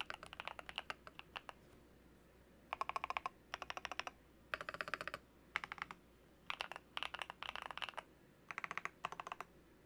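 Typing on an RK100 mechanical keyboard with lubed Akko Cream Yellow Pro linear switches, MSA-profile keycaps and a foam-modded case. After a short pause about a second and a half in, the keystrokes come in quick bursts with brief gaps between them.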